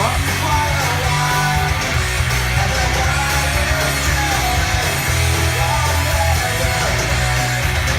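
Rock music with electric guitar and singing, playing back from a record on the repaired Rega RP1 turntable.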